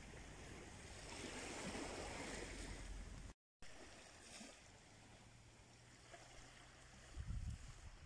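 Faint surf washing on a beach, with low rumbling noise over it at first. The sound cuts out for a moment a few seconds in, and there is a soft thump near the end.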